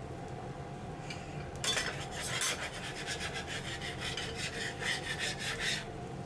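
Metal teppanyaki spatulas scraping on the steel griddle plate in quick repeated strokes as they slide under the edge of an omelette. The scraping starts about two seconds in and stops shortly before the end, over a steady low hum.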